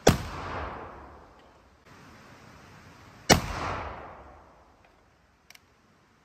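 Two shots from a reproduction Remington 1863 Zouave percussion rifle firing .58-calibre Minié balls over 55 grains of FFFg black powder, about three seconds apart, each echoing for over a second before dying away. A short faint click follows near the end.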